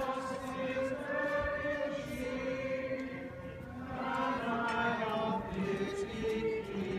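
A group of voices singing a hymn together in slow, held notes, with a short break between phrases about halfway through.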